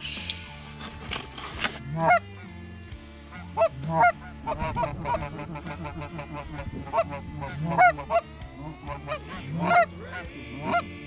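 Canada geese honking: a string of short two-note honks that break upward in pitch, coming irregularly, sometimes several close together.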